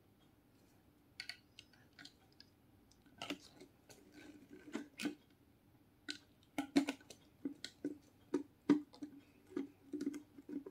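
Small plastic clicks and taps as a trigger spray head is fitted into a plastic bottle and screwed down. The clicks are sparse at first and come more often, two or three a second, from about six seconds in.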